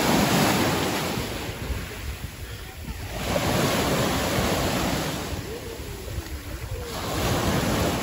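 Small Black Sea surf breaking at the shoreline of a choppy sea: three surges of wash about every three to four seconds, each swelling and then fading.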